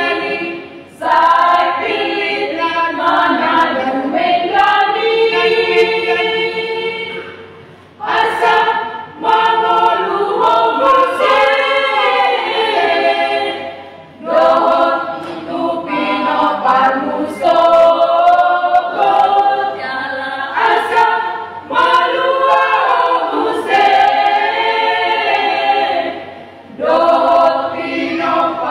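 Women's church choir singing unaccompanied, in long phrases with brief pauses for breath between them.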